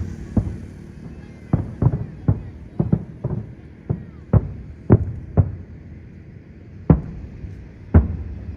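Aerial firework shells bursting in the sky: about a dozen sharp booms at irregular spacing, crowded together in the first half and sparser after, with faint whistling glides among them about two to three seconds in.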